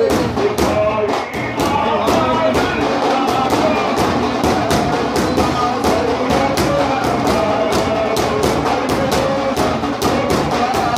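Sufi devotional singing with daf frame drums beating a fast, steady rhythm of several strikes a second under the voices.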